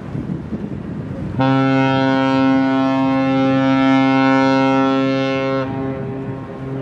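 A ship's horn sounds one long, steady, deep blast of about four seconds, starting and stopping abruptly, with a faint trace of the tone lingering after it. Wind rumbles on the microphone before the blast.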